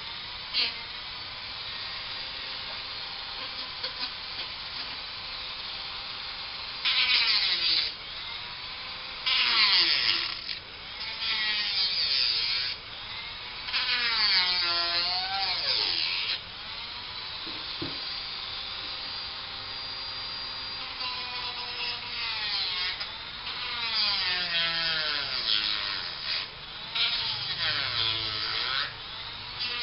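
Small handheld power tool running, its motor whine sagging in pitch and recovering again and again as it is pressed against the work, with several loud bursts of harsh grinding noise.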